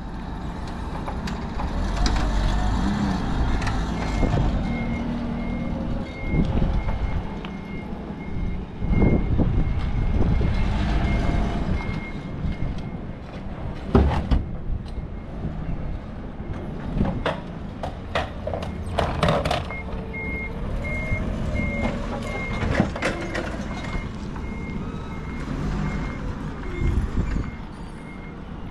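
Forklift engine running with its reversing alarm beeping in a steady high-pitched pattern, the beeping stopping for several seconds midway. Sharp metal knocks and clanks come in the middle as the forklift handles a wrecked car.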